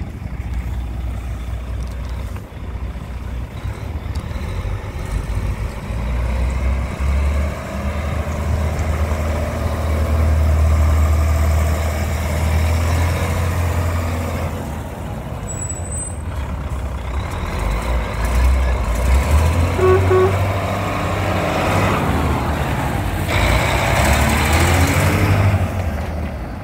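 Volvo FM12 truck's 12-litre six-cylinder diesel engine running, its revs rising and falling several times. Two short beeps about two-thirds of the way through, then a burst of air hiss near the end.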